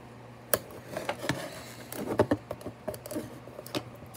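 Plastic toy packaging being handled while fingers pick at the clear tape holding the figure in: scattered sharp clicks and light crinkling of the plastic.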